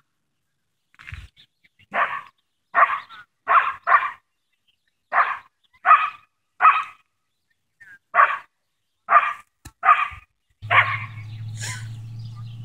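A dog barking repeatedly, about eleven barks spaced roughly a second apart. A steady low hum starts near the end.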